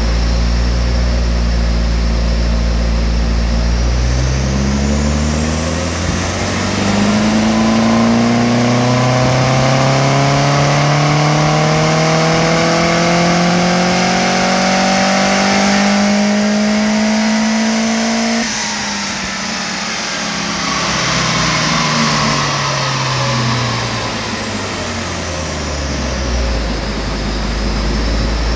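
Turbocharged 2.0-litre four-cylinder 3S-GTE of a 1991 Toyota Celica GT-Four on a chassis dyno: idling, then about four seconds in it begins a long power run, engine pitch climbing steadily for some fourteen seconds. The throttle then shuts suddenly and the engine winds down in falling pitch, settling back to idle near the end.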